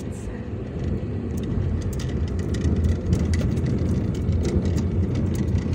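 Car engine and road rumble heard from inside the moving car's cabin, a steady low drone that grows louder over the first couple of seconds and then holds.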